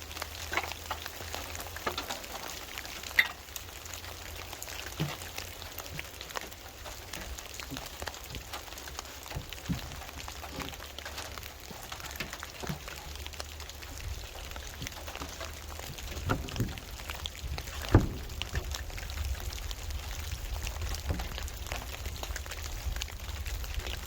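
Rain falling and pattering on a surface in many irregular small drips. A few louder knocks stand out, the loudest about eighteen seconds in.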